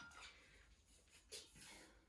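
Near silence: small-room tone with a couple of faint soft noises.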